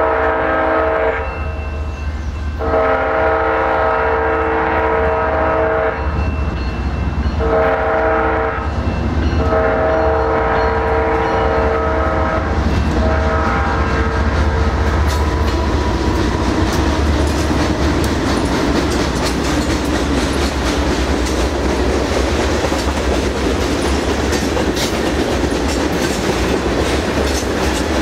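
Horn of a BNSF freight train's lead diesel locomotive sounding four blasts, long, long, short, long, the grade-crossing signal. The locomotives then pass close by, followed by freight cars rolling steadily with wheels clicking over the rail joints.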